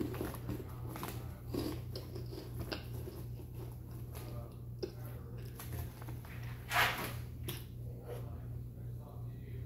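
A person chewing crunchy chips: irregular crisp crunches, with one louder crunch about seven seconds in, over a steady low hum.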